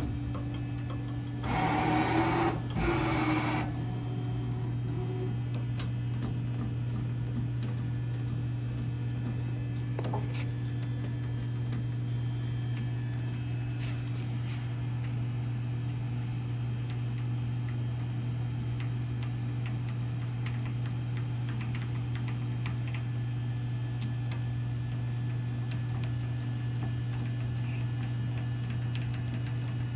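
Southwestern Industries Trak TRL 1630SX CNC lathe running with a steady low hum and faint ticking. A louder rushing burst in two parts comes about two seconds in, with a short rising tone.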